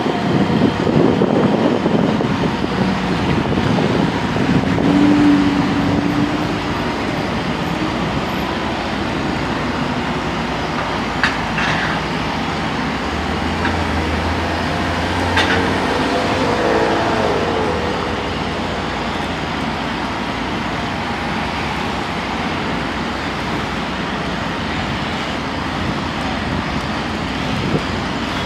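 Steady diesel engine noise from a TMS9000 truck-mounted crane lifting a concrete wall panel, mixed with passing street traffic. A few short knocks come around the middle.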